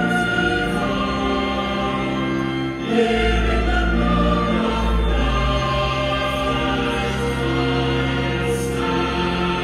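A choir singing a slow hymn-like piece in long held chords, with a deep bass note entering about three seconds in.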